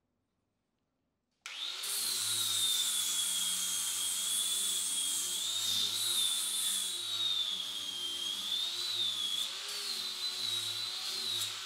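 Angle grinder grinding the threads off a rusted steel bolt held in a vise: a high motor whine over a harsh grinding rasp that wavers slightly in pitch as the disc bites. It starts abruptly about a second and a half in and stops near the end.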